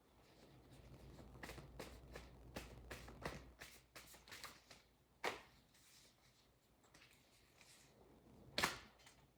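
Tarot cards being handled: a run of light flicks and taps, then two sharper card snaps, one about five seconds in and one near the end.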